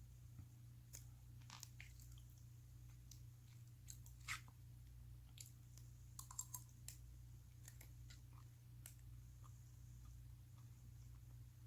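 Faint, close-miked chewing of soft Spam: wet mouth clicks and smacks scattered throughout, a little louder about 4 seconds in and again between 6 and 7 seconds, over a steady low hum.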